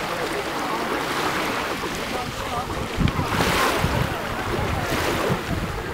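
Small waves washing on a pebble shore with wind on the microphone and faint voices in the background; a louder rush of wind buffeting the microphone comes about three seconds in.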